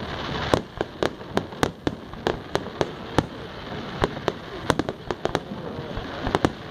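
Fireworks display: aerial shells bursting in quick, irregular succession, sharp bangs about two to three a second over a continuous background rumble and crackle.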